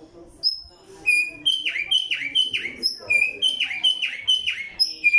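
Caged tumbayegua songbird singing a loud, fast song. Short high whistled notes mix with repeated notes that slide sharply downward, about two a second. The song starts about half a second in and breaks briefly near the middle.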